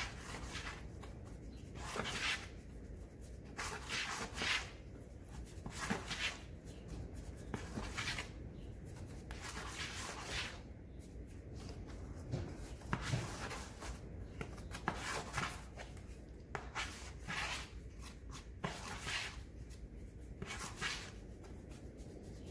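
Duraglass body filler being mixed with its hardener, a spreader scraping and folding it on a mixing board in short, irregular strokes about every second or two.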